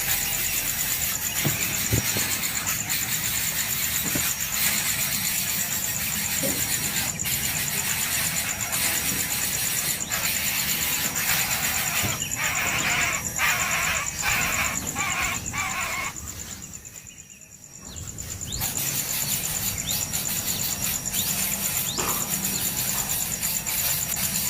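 High-pitched squeaking and cheeping of baby birds in the nest over a steady high-pitched whine, with the sound dropping away briefly about seventeen seconds in.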